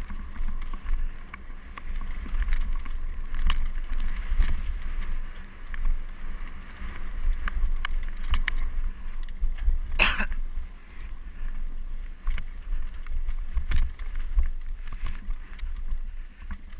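Mountain bike descending a rocky trail, recorded by a GoPro HD Hero riding along: wind buffeting the microphone over a continual rattle of the bike and knocks of the tyres over stones. One louder, sharper burst about ten seconds in.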